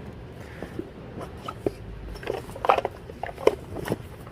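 Rummaging through items by hand: scattered rustles, crinkles and light knocks, the loudest a little under three seconds in and again about half a second later.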